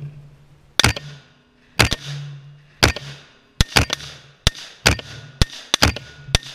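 AR-15 short-barreled rifle firing about eleven shots. The first three come about a second apart, then the pace quickens, with some shots in quick pairs, each crack followed by a short echo.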